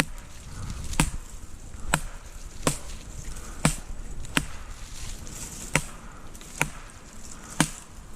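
Sharp wooden knocks, about one a second, steady throughout: a stick striking a tree trunk, as done to rouse a squirrel hidden in the tree.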